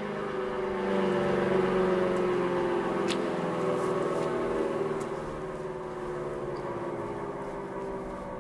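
Large mechanical rotating outdoor warning siren coasting down after its alert signal: a chord of several tones slowly falling in pitch.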